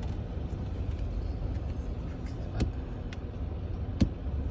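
Steady low rumble inside a car cabin with the engine running, broken by a few sharp clicks, the clearest about two and a half and four seconds in.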